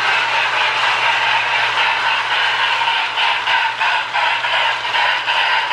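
Marx Sound-O-Power tender sounding out its loud, steady steam hiss as the toy Hudson locomotive runs around the track, over a low motor hum. The hiss shows the repaired actuator wheel is passing current again.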